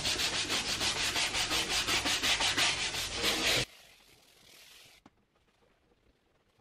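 Detailing brush scrubbing a leather door panel with leather cleaner in quick, even back-and-forth strokes, stopping suddenly about three and a half seconds in. After that, near silence with one small click.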